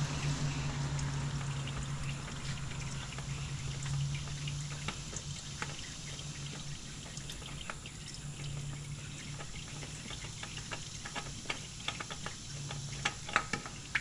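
Engine oil dribbling and dripping from a hand-loosened oil filter as it is unscrewed: a soft trickle with drops ticking onto the ground, coming faster toward the end. A low hum comes and goes in the background.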